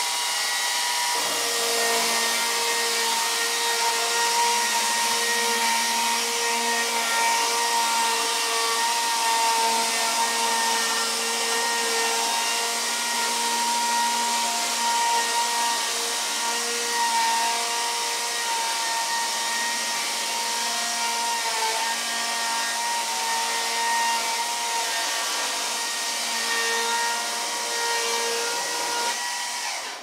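Electric chainsaw on a Logosol F2 chainsaw mill ripping a log lengthwise, fed along the rail: a steady whine of the motor and chain cutting through the wood, which stops suddenly near the end.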